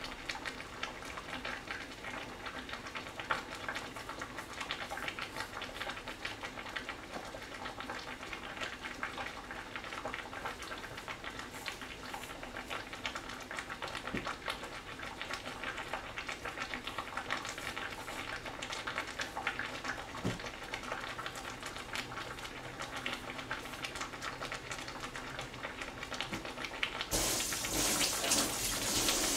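Pot of corn boiling on a gas stove, a steady bubbling with small clicks. Near the end a kitchen tap runs loudly for about two seconds.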